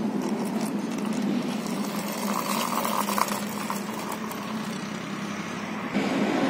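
Plastic toy auto rickshaw rolling across rough concrete, a steady gritty rumble of its small wheels on the ground.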